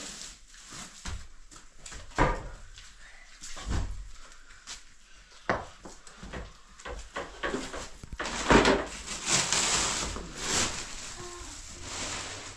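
Heavy woven sacks being lifted, dragged and set down on a rubble-strewn concrete floor: scattered thumps and knocks with the rustle of the sack fabric and footsteps on grit, loudest about eight and a half seconds in.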